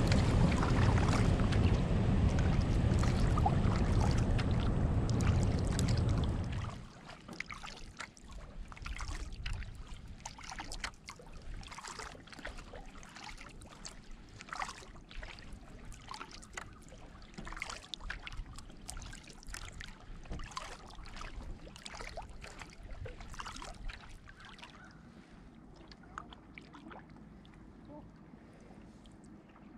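Wind buffeting the microphone for the first six or seven seconds, then cutting off abruptly. After that, quiet kayak paddling: water dripping and splashing off the paddle blades in many small, irregular ticks, fading near the end.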